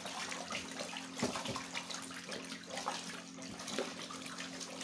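Water sloshing and splashing in a large plastic basin as a stick stirs nitrosol powder into it, in repeated irregular swishes.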